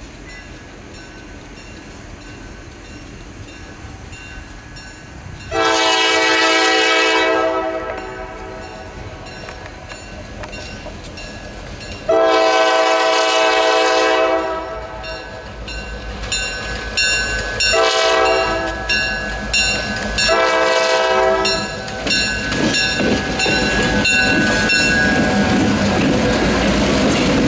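Diesel locomotive air horn sounding the grade-crossing signal: two long blasts, a short one and a long one, each a multi-note chord. A crossing bell rings through the later part. Near the end, NCVA EMD GP38-3 diesel locomotives pass close by with engine rumble and wheel noise.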